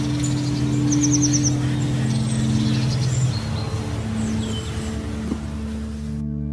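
Birds chirping and trilling over a steady low hum, which shifts in pitch about three seconds in. The sound drops out briefly near the end.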